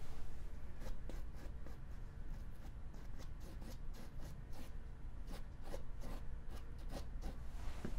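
Paintbrush dabbing and stroking acrylic paint onto canvas: an irregular run of soft taps and scratchy brush strokes, several a second.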